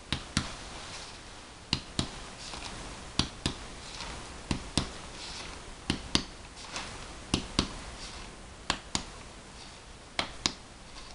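Chest percussion on a person's back: fingers striking the middle finger of a hand laid flat on the skin, two sharp taps at a time, a pair about every second and a half. The taps work down the back to find where resonant lung gives way to dullness over the diaphragm.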